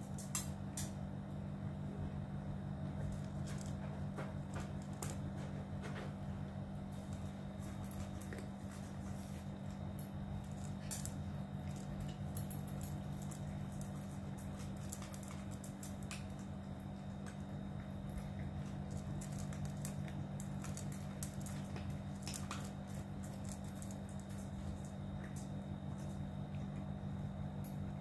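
Several cats crunching dry kibble from stainless steel bowls, with irregular small clicks of teeth and kibble against the metal, over a steady low hum.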